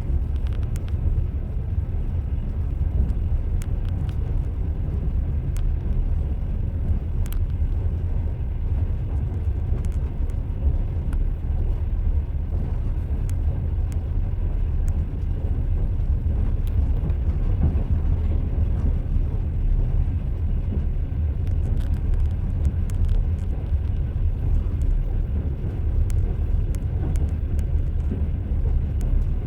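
Train running along the rails: a steady low rumble with a few light, scattered clicks, and no clear rhythmic wheel clack.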